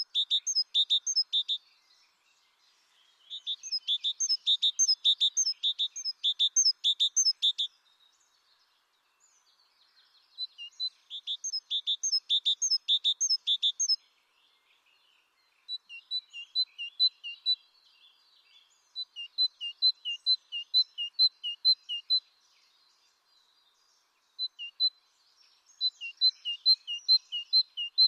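A songbird singing: bouts of quick, high two-note phrases, about three a second, repeated for a few seconds at a time with short pauses between bouts.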